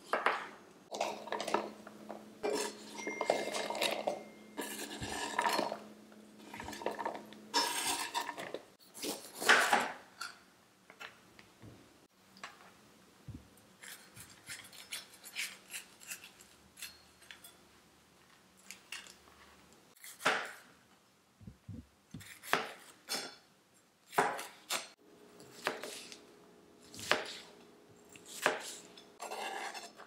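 A chef's knife cutting cucumber and bell pepper on cutting boards: irregular knocks of the blade against the board, with short scrapes and the handling of the vegetables.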